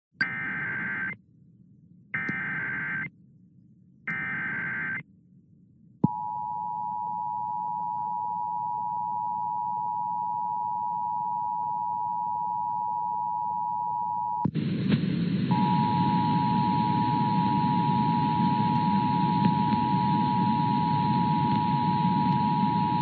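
Emergency Alert System tones: three short bursts of warbling SAME header data about two seconds apart, then the steady two-tone attention signal. About halfway through, a loud hiss of static comes in under the attention signal, which cuts out for a second and then carries on.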